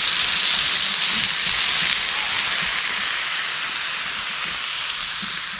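Cheese slices and ground meat sizzling on a hot plow-disc griddle: a steady frying hiss that eases off a little toward the end.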